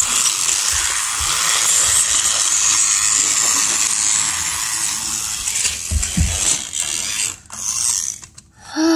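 A battery-powered toy train's small motor and plastic gears whirring steadily, breaking up into a few short stops and starts near the end, with a dull knock about six seconds in.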